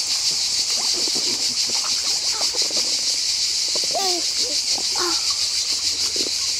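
Small children splashing lightly in a shallow plastic tub of water, with short baby vocal sounds. Under them runs a steady high-pitched hiss with a fast pulse.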